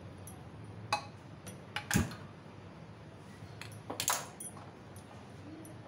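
Wooden spoon knocking and scraping against an aluminium pressure-cooker pot while mutton is stirred and fried in its masala. The knocks are irregular, the loudest about two seconds in and a quick cluster around four seconds.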